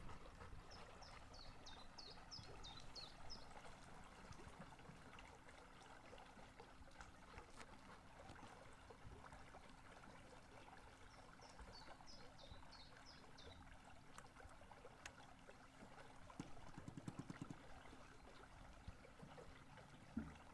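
Faint water rippling along the hull of a small aluminium electric boat under way, with a low steady hum. A bird sings a quick run of high, falling notes twice, once near the start and again about halfway through.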